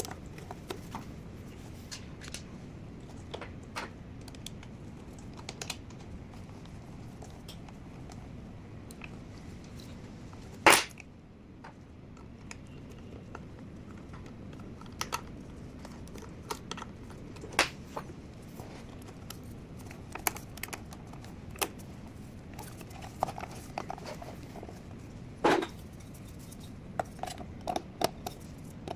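Light mechanical clicks and clacks of a smart door lock and its handle being worked, scattered irregularly over a steady hiss, with two louder clacks about eleven and twenty-five seconds in.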